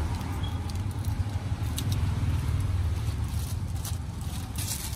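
Knife slicing a small green fruit held in a gloved hand, a few light clicks and scrapes, over a steady low rumble that is the loudest sound.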